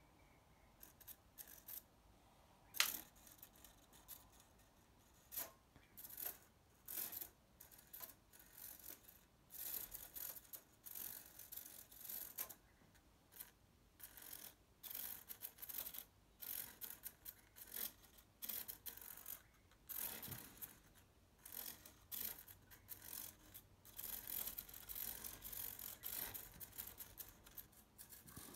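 Flapping mechanism of a scratch-built ornithopter, a tiny brushed motor driving micro reduction gears, run in many short, irregular bursts with a high whir. A sharp click about three seconds in is the loudest sound.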